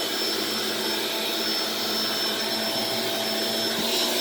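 Small, lightweight vacuum cleaner running steadily, a rush of air with a steady high whine from its motor.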